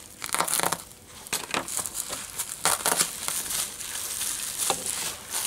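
Bubble wrap crinkling and crackling in irregular spurts as it is pulled open and handled.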